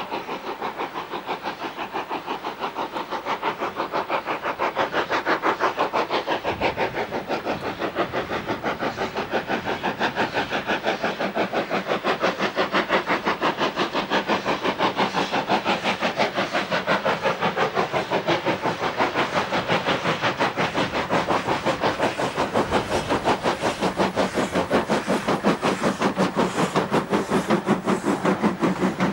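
LNER J27 0-6-0 steam locomotive 65894 working a goods train, its exhaust beating fast and evenly, growing louder over the first few seconds as it approaches and then staying loud as it passes.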